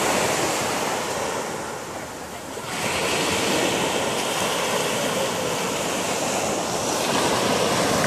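Ocean surf breaking and washing up a sandy beach. There is a lull about two seconds in, then the wash swells back up sharply.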